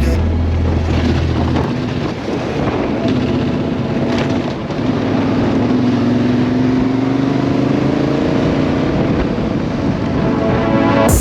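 Yamaha Ténéré 700 (T7) motorcycle's parallel-twin engine running under way, mixed with a steady rush of wind and road noise; the engine note slowly rises through the middle as it picks up speed.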